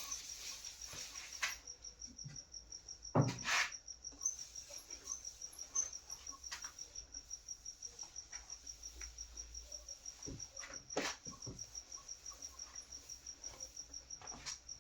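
A cricket chirping steadily in the background, a high even pulse about five times a second. A couple of brief knocks stand out, about three seconds in and again near eleven seconds.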